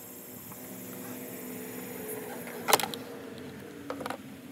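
Tools and engine parts being handled during reassembly of a crankcase ventilation filter housing: one sharp click about three seconds in, then a few lighter knocks near the end, over a steady low hum.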